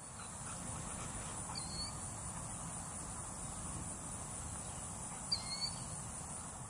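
Steady high-pitched drone of insects, with a bird giving short chirps about a second and a half in and again, louder, near the end.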